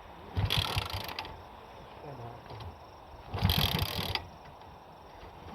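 A motorcycle's kick-starter is kicked twice: two short mechanical ratcheting clatters a few seconds apart as the engine is turned over, and it does not fire.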